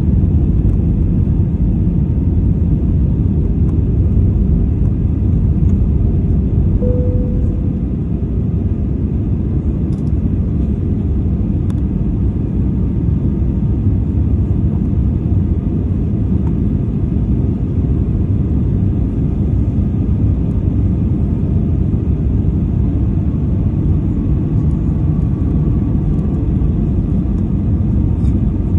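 Steady, even rumble of jet engines and airflow heard inside the cabin of an Airbus A320-family airliner, seated by the wing during the descent. A short tone sounds about seven seconds in.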